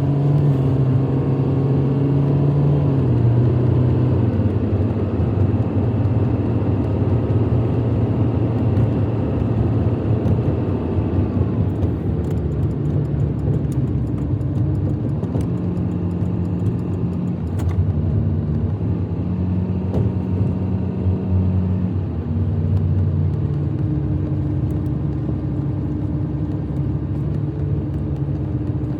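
A car being driven, its engine hum and road rumble steady, with the engine note shifting up and down in pitch several times.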